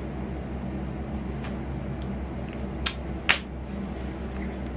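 Steady low room hum, like a fan or air conditioner running, with a few short sharp clicks, two louder ones close together about three seconds in.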